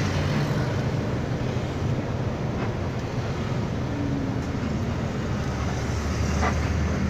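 Bus engine running steadily with road noise, heard from inside the bus cabin, and a couple of faint rattles.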